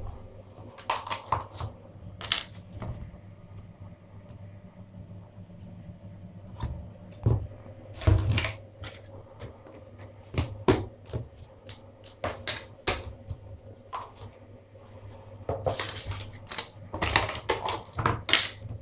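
Clear plastic deli tubs and their lids being stacked, set down in a bathtub and snapped shut: scattered clicks, clacks and light rattles in irregular flurries, busiest near the end, over a faint steady hum.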